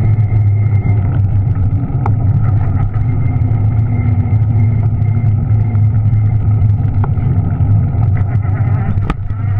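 Juiced RipCurrent S electric bike's hub motor running steadily under power, its hum and whine carried straight to the camera through a rigid aluminium handlebar mount, over tyre noise on a gravel path. A few sharp clicks about 2, 7 and 9 seconds in.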